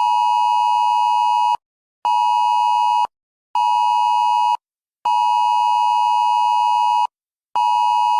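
Electronic emergency-alert beep tone, a steady buzzy tone near 1 kHz, sounding in a repeating rhythm of one long beep and two short ones with half-second gaps. It breaks into a broadcast to signal an incoming emergency alert.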